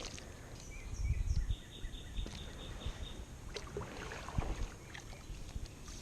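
Kayak being handled on a river: a few low bumps about a second in and scattered sharp clicks later, with a short run of quick faint high ticks in between.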